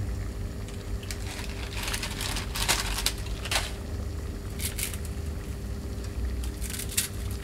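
Dry block of instant ramen noodles being crushed and broken by hand, in several short crunching bursts, over the steady low bubbling of a saucepan of water at a rolling boil.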